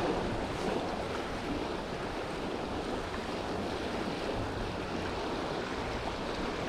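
Steady rushing of a small river running over shallow riffles, with low wind rumble on the microphone.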